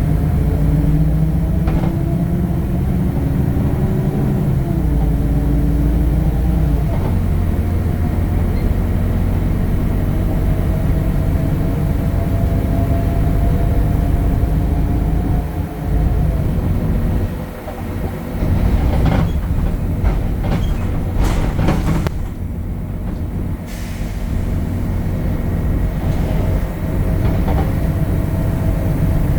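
Temsa Avenue LF 12 city bus heard on board: its DAF Euro 5 diesel engine and ZF automatic gearbox running with a heavy low drone and whining tones that rise and fall in pitch in the first few seconds. About two-thirds of the way through comes a series of sharp knocks and clicks.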